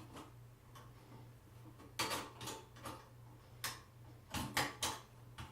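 Irregular light clicks and taps of small lamp-assembly parts and a wrench being handled, about seven short clicks spread over the last three and a half seconds, over a faint steady low hum.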